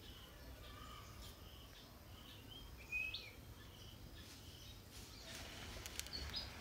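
Faint outdoor ambience with scattered short bird chirps, one clearer call about three seconds in, and a few sharp clicks near the end.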